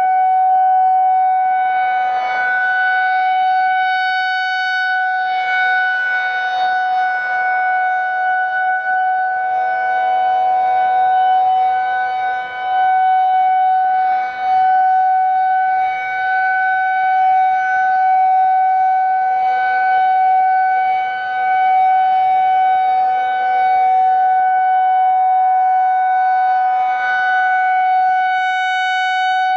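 Federal Signal 2001-130 rotating outdoor warning siren holding a steady, unchanging tone during a weekly test, its chopper working, swelling louder as the rotating horn swings toward the listener. A second, more distant siren sounds faintly at a slightly lower pitch for a few seconds.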